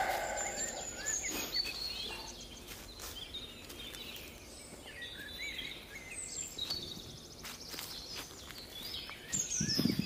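Small songbirds calling in short, high chirps, over footsteps crunching through dry fallen leaves. Near the end there is a louder, lower sound.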